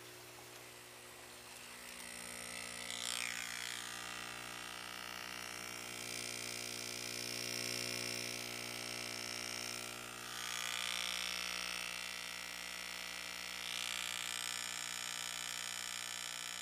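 Electromagnetic linear diaphragm air pump running after its diaphragm repair: a steady electric buzz over a low hum that swells louder and brighter a few times.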